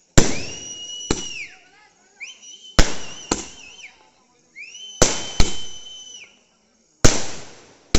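240-shot aerial fireworks cake firing: about eight sharp bangs of shells launching and bursting, with three high whistles in between. Each whistle glides up, holds steady for about a second and a half, then drops away.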